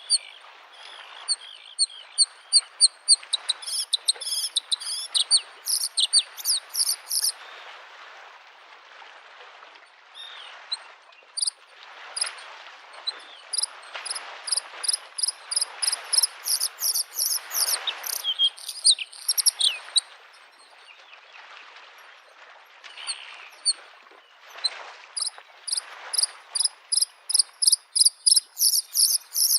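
Bluethroat singing: long phrases of fast, rapidly repeated high ringing notes, in three runs with short pauses between. Underneath, a soft steady wash of lake waves lapping on the shore, swelling now and then.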